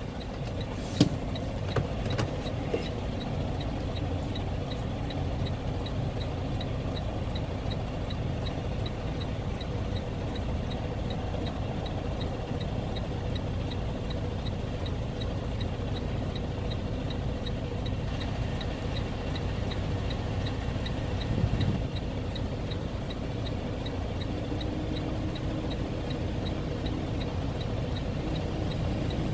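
Semi-truck diesel engine idling steadily, heard from inside the cab, with a faint, very regular ticking running over it. A few sharp knocks come in the first few seconds, and a short bump comes about three-quarters of the way through.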